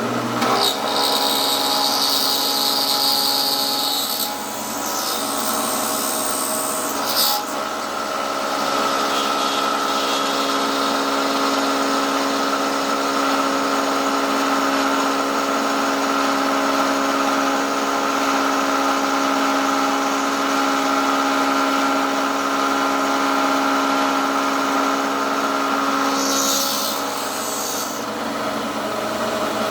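Motor of a metalworking machine tool running steadily under power, with a cutter working a steel part. Short bursts of high scraping and hissing come near the start, about seven seconds in and near the end.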